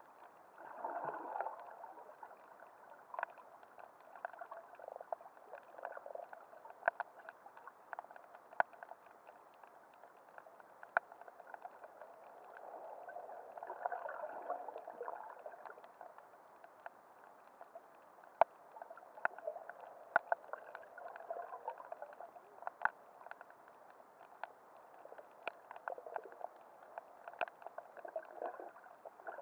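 Underwater sound picked up by a submerged camera: a muffled wash of moving water that swells now and then, with scattered sharp clicks and crackles.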